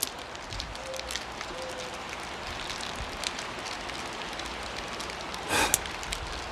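Campfire crackling sound effect: a steady hiss with many small scattered pops, the crackle made Foley-style by crinkling plastic. One louder, brief crackle about five and a half seconds in.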